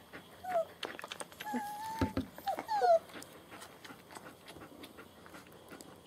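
Young German Shepherd puppies whimpering: several short, high whines, some falling in pitch and one held a little longer, clustered between about half a second and three seconds in.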